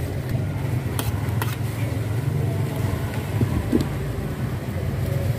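A few light clinks of a metal ladle against a steel pot of gravy over a steady low hum.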